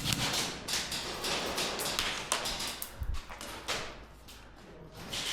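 Scattered, irregular sharp taps and clicks, with a single low thud about three seconds in.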